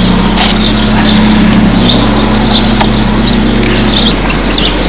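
Small birds chirping over a steady low hum; the hum stops about four seconds in.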